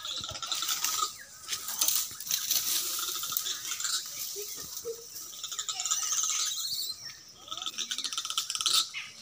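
High-pitched animal calls and rapid chattering, continuing with a few sharp clicks and a dip near the middle.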